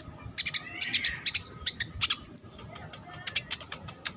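A konin songbird in full song: a fast run of sharp, high chirps and clicks, with a quick upward-sliding whistle about two and a half seconds in.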